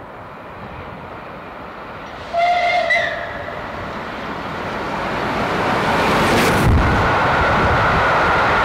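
Steam locomotive approaching at speed, with a short whistle blast about two and a half seconds in. The noise of the engine and train grows louder as it draws near.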